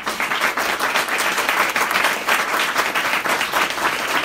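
Audience applauding: many people clapping together in a dense, steady patter, starting just after a talk ends with "thank you".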